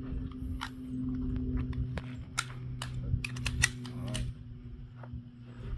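Several semi-automatic handguns being loaded at once: a quick scatter of sharp metallic clicks and clacks, thickest from about two to four seconds in, as magazines are seated and slides are racked. A steady low hum runs underneath.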